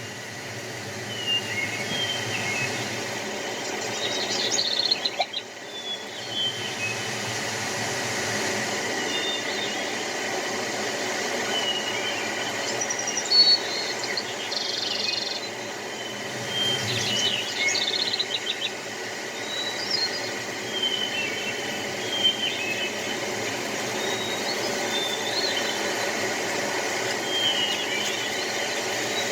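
Spring morning birdsong: several birds chirping and trilling in short phrases, one after another, over a steady background hiss.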